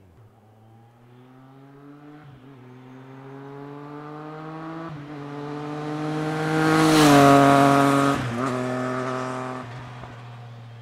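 A 2020 Triumph Street Triple RS's 765 cc inline three-cylinder engine with an Akrapovic exhaust, accelerating hard through the gears as the bike approaches. The note climbs in pitch, with short breaks at each upshift. It is loudest as the bike passes close about seven seconds in, drops in pitch, shifts once more and fades away.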